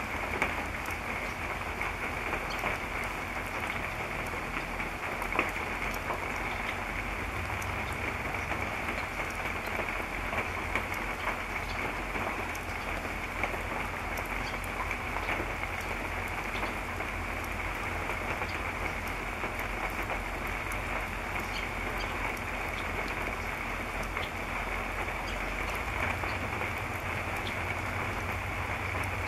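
Steady rain falling, a constant hiss with many small scattered drop ticks.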